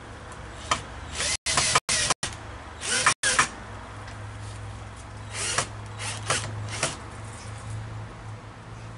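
Cordless drill driving screws in short bursts: two longer runs in the first few seconds, then a few brief pulses.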